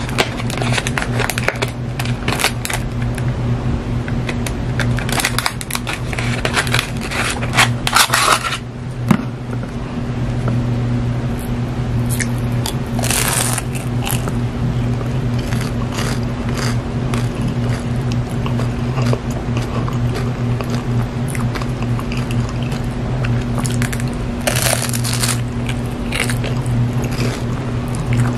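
Close-up crunching of a fried Jollibee choco banana pie's crisp crust being bitten and chewed, with crackles from the paper pie sleeve being handled in the first several seconds. Clear crunch bites come about halfway through and again near the end, over a steady low hum.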